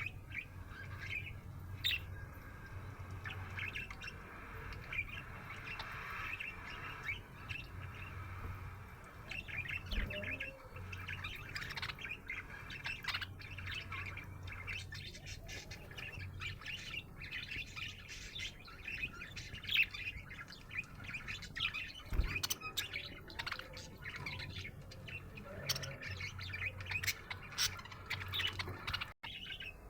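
Budgerigar chirping continuously in quick, varied chirps and short warbles.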